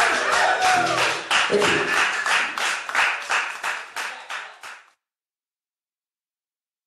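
Small audience clapping after a song, with some voices over the claps early on; the applause fades out about five seconds in and the sound ends in silence.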